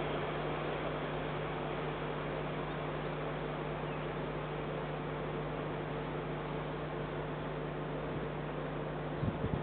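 Steady hiss with a constant low electrical hum from a security camera's microphone. A few low bumps come near the end.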